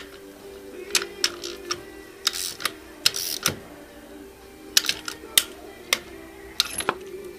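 Irregular sharp clicks and clinks of hand tools being handled during motorcycle engine servicing, with two short scraping or hissing bursts a few seconds in, over steady background music.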